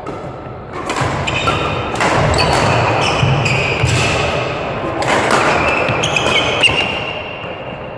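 Badminton doubles rally: rackets strike the shuttlecock in sharp clicks, shoes squeak and feet thud on the court floor, all ringing in a large sports hall. The play gets busier about a second in and dies down near the end.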